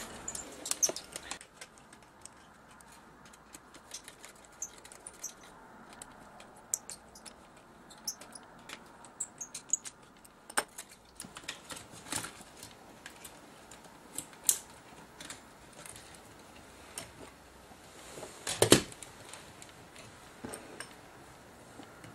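Sparse small clicks, ticks and light rattles of the metal tape deck and its tiny screws being handled as a camcorder is taken apart, with one louder knock about 19 seconds in.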